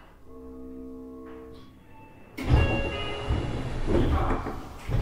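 Interior of a Seibu 6000 series train standing at a station: a few sustained chime tones, then a sudden rush of noise about halfway through and a heavy thud at the end, as of the sliding doors closing.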